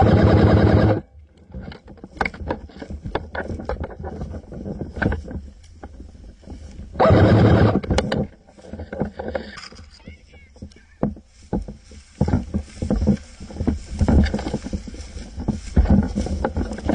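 Ignite Black Ops M4 electric airsoft rifle firing short full-auto bursts, a steady buzz of its motor and gearbox cycling, one burst at the start and another about seven seconds in. Between and after the bursts, scattered clicks and rustling from the gun being handled and the player moving.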